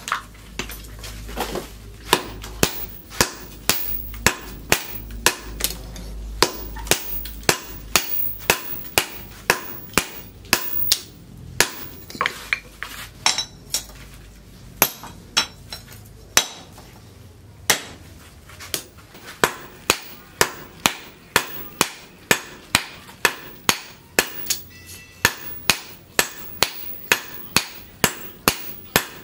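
Sledgehammer blows on red-hot leaf-spring steel held on a steel post anvil, hand-forging it into an axe head: sharp ringing strikes in a steady rhythm of about two a second, with a few short pauses.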